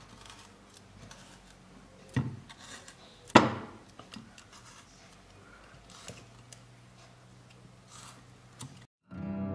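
A metal fork pricking and scratching the flesh of a raw pumpkin half in a glass baking dish: faint scrapes and small clicks, with two sharper knocks about two and three and a half seconds in. The sound cuts out just before the end and acoustic guitar music begins.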